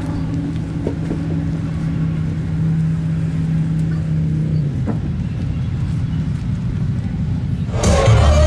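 A motorcycle engine idling with a steady low rumble, a steady hum in it dropping away about halfway through. Loud music cuts in near the end.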